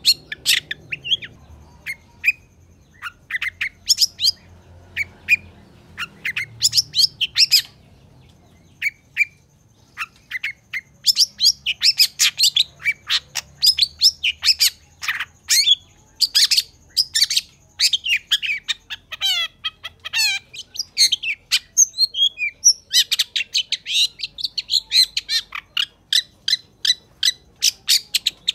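Long-tailed shrike (cendet) singing in rapid runs of sharp, high chattering notes. The notes thin out to a few scattered ones about a third of the way in, and a few falling, slurred notes come just past the middle.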